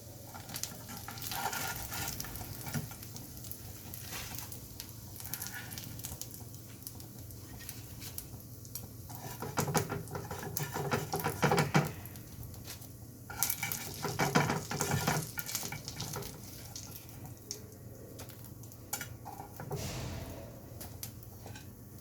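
Rava-coated mutton chops sizzling in oil in a non-stick pan, with bursts of utensil scraping and clinking against the pan about halfway through.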